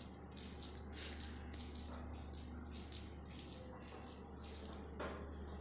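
Hands squeezing and rolling a crumbly mixture of roasted oats, seeds, dry fruits and dates into laddoo balls: faint, repeated soft rustling and crackling of the mixture, a little stronger about five seconds in.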